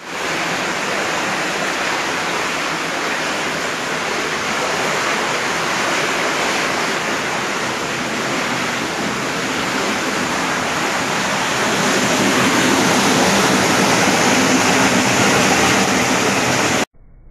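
Floodwater rushing through a house: muddy water streaming across the floor and pouring in through a window in a torrent. The rush gets louder about two-thirds of the way through and cuts off suddenly near the end.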